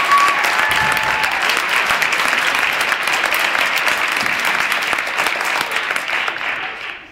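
Audience applauding, a dense clatter of many hands that fades and stops near the end.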